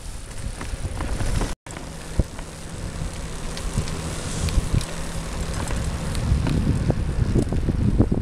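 Catrike recumbent trike rolling along a trail: tyre and frame rumble with scattered clicks and knocks from the ride, and wind buffeting the microphone. The sound cuts out for a moment about a second and a half in, and a low steady hum runs through the middle few seconds.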